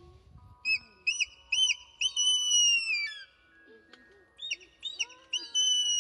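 Mountain hawk-eagle calling: two series, each of about three short, clear whistled notes followed by one long, loud whistle that slides down in pitch.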